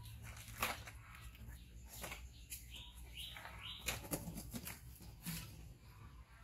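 Baby macaques tussling and scrambling on a woven mat: scattered knocks, taps and rustles, with a few short rising high chirps around the middle.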